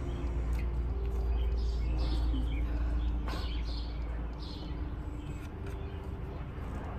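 Birds chirping in short falling calls over a steady low rumble, with a single sharp click a little past the middle.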